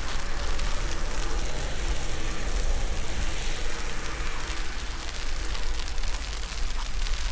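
Wind buffeting the camera's microphone in a snowstorm: a heavy, fluttering low rumble under a steady hiss, with a faint low hum running through it.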